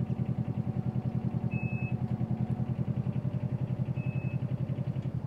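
Engine of a self-propelled orchard harvest platform running with a rapid, even chugging pulse while the platform drives along the apple row, dropping away sharply near the end as it stops. A short high beep sounds twice.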